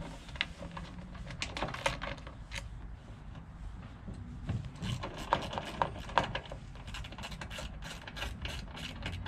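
Irregular light clicks and clinks of hand tools and small parts being handled while taking apart a small engine's intake.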